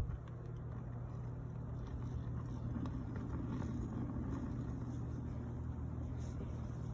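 Steady low roar and hum of a metal-melting furnace running close by, swelling a little around three seconds in.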